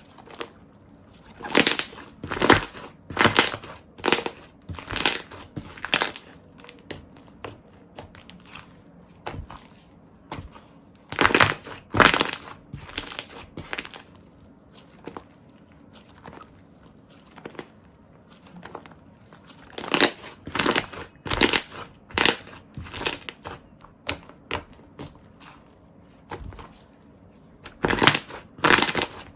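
Slime being pressed and squished by hand, giving clusters of sharp crackling pops with short pauses between the bouts.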